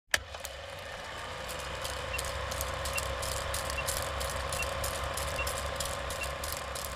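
Old-film sound effect: a steady hiss over a low hum, with scattered crackles and pops and a faint high tick repeating a little under once a second. It starts with a sharp click.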